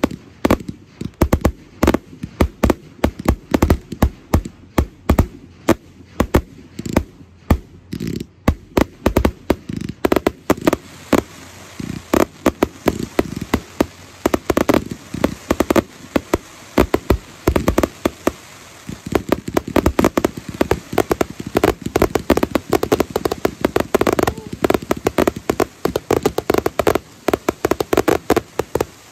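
Aerial fireworks display: a rapid, irregular series of sharp shell bursts and bangs, growing denser about ten seconds in.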